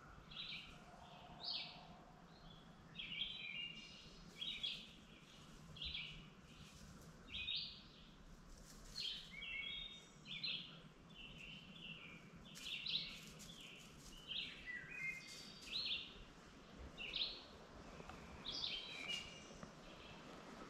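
Small songbirds singing: short, high chirping phrases that come every second or so, over a faint steady low hum.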